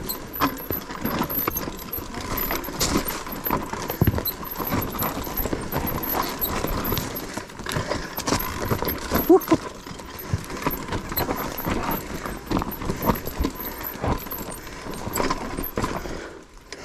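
Mountain bike rattling down a rough trail: a continuous run of irregular knocks, clicks and jangles from the tyres hitting the ground and the chain and frame shaking.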